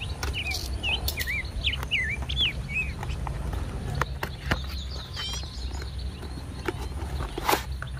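A small bird chirping a quick series of short swooping notes in the first few seconds, with another brief trill about halfway through. Under it, cardboard box handling clicks and rustles, with a sharper knock near the end, over a steady low rumble.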